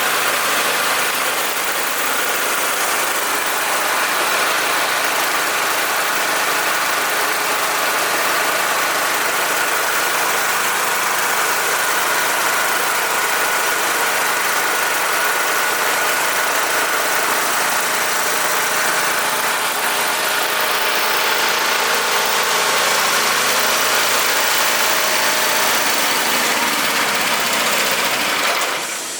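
Small multifunction rice milling machine running steadily: an even mechanical whir with a steady high whine through it, dropping away suddenly at the very end.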